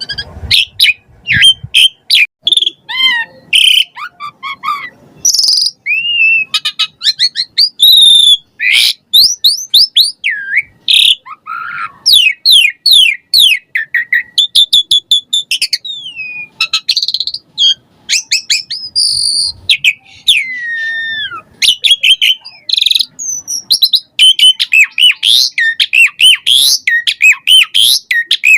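Pied starling (jalak suren) singing a long, fast, varied song of whistles, sharp chirps and sliding notes, one phrase running straight into the next.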